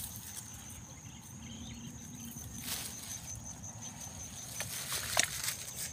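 Steady high-pitched insect trill in a rice field, with a couple of soft rustles as rice stalks brush past.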